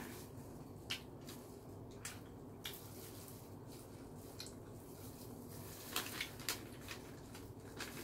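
Close mouth sounds of a person chewing pizza: sparse, soft wet clicks and smacks over a steady low hum, with a quicker run of them about six seconds in.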